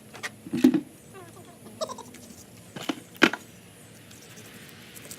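A handful of sharp knocks and clicks, a few seconds apart, with faint short chirps about a second in.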